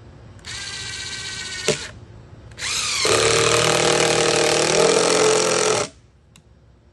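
Cordless drill driving a fastener into wood: a short run of the motor, then a louder run of about three seconds as the screw is driven home, stopping abruptly.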